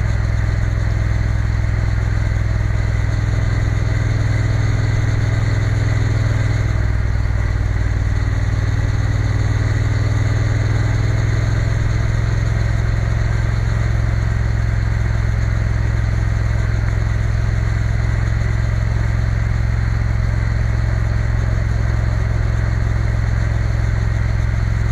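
Triumph Bonneville T120's parallel-twin engine running steadily under way at a cruising pace, heard from the rider's position. The engine note shifts about six or seven seconds in, then holds steady again.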